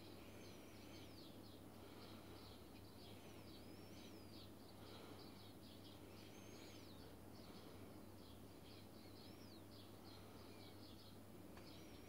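Sparrows chirping faintly, a steady run of short repeated chirps with an occasional swooping call, over a low steady hum.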